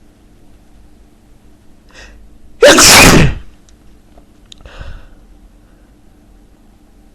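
A man sneezing once, loudly, about two and a half seconds in, after a short intake of breath. A quieter breath follows about two seconds later.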